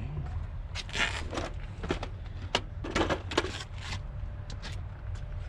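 Scattered clicks, knocks and rustling from plastic steering-wheel parts being handled, with the louder bursts about one and three seconds in, over a steady low rumble.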